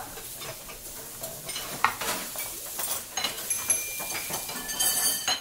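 Kitchenware clattering: a busy run of clinks, scrapes and knocks with short ringing tones, growing denser near the end before cutting off.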